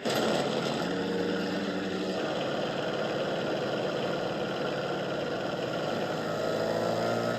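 A loud, steady engine drone cuts in suddenly and holds. Long held tones of the film's score sound underneath it.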